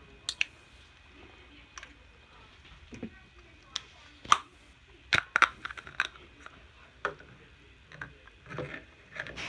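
Putty containers and lids being handled: scattered sharp clicks and knocks, the loudest cluster about four to six seconds in.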